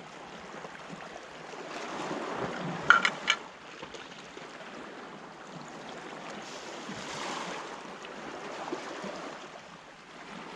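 Sea waves washing on the shore, swelling and ebbing, with a few short sharp clicks about three seconds in.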